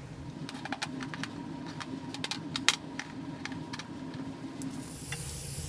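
Light metallic clicks and taps as steel bolts are moved and set down on a bench top, over a steady hum. About five seconds in, the hiss of an aerosol spray can of WD-40 starts.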